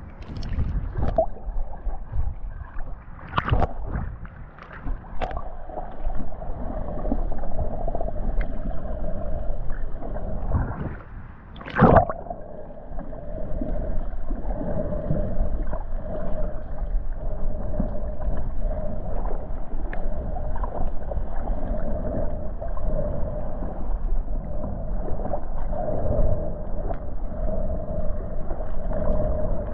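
Muffled underwater sound picked up by an action camera in its waterproof case: water gurgling and rumbling as the snorkeler moves through the shallows. There are a few sharp knocks, the loudest about 12 seconds in, and a steady hum from about 6 seconds on.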